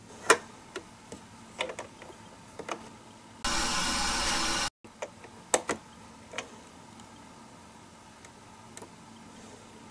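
Small clicks and taps of a tiny plastic pot being handled, then about a second of water running from a toy kitchen faucet into it, stopping abruptly, followed by a few more clicks.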